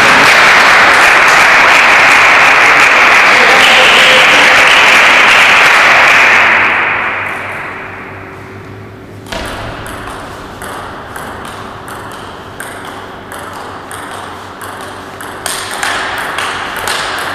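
A table tennis rally starts about nine seconds in: the ball clicks off the paddles and the table, a couple of hits a second. Before it, a loud, even rushing noise fills the first six seconds and fades away.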